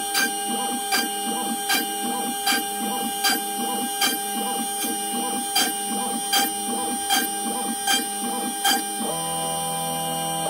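OpenBuilds CNC router with a 2 hp silent spindle drilling rows of small holes in fibreboard: a steady spindle whine with a short plunge sound about every three-quarters of a second. Near the end the plunges stop and a steadier hum of the machine's motors takes over.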